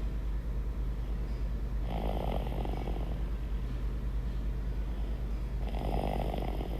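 Snoring: a continuous low, vibrating rumble, with a louder, noisier breath about every four seconds, once about two seconds in and again near the end.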